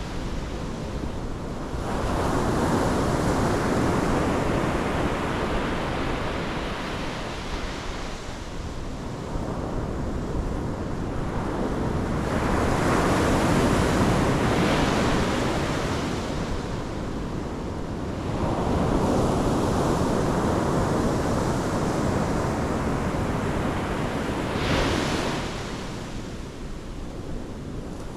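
Pacific Ocean surf breaking on the shore, a steady rush of water that swells and falls back as several waves come in one after another, with a sharper hissing break near the end.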